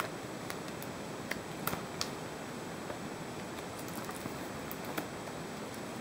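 Light handling of a photo album's plastic-sleeved pages: a few faint, scattered clicks and ticks over a steady hiss.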